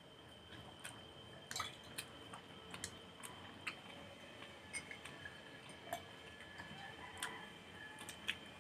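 Quiet eating sounds: scattered small clicks and smacks of chewing and of fingers picking at fish and rice, over a faint steady high tone.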